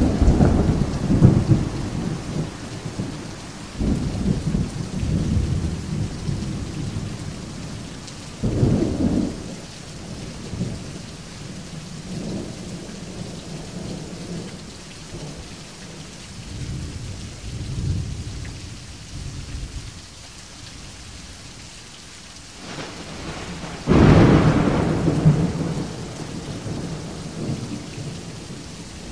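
Steady rain with repeated rolls of thunder. Low rumbles swell at the start and again about four and nine seconds in. Near the end a loud, sudden thunderclap rolls on for several seconds.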